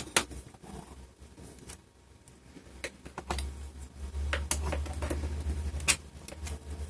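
Plastic laptop screen bezel being pressed into place, its clips clicking a few times at irregular intervals, with a low rumble of handling from about three seconds in to about six seconds.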